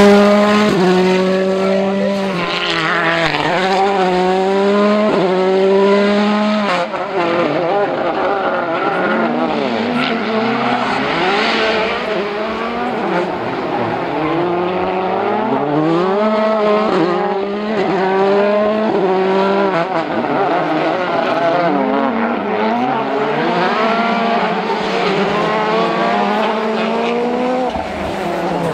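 World Rally Car 1.6-litre turbocharged four-cylinder engines revving hard. The pitch climbs and drops again and again as the cars accelerate, change gear and lift, with a busier stretch of rising and falling revs after about seven seconds.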